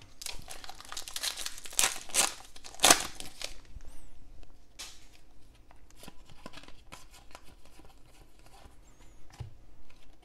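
Football trading card pack wrapper torn open and crinkled by hand for the first three and a half seconds, loudest near the end of the tearing. After it come soft clicks and rustles of cards slid and flipped through by hand.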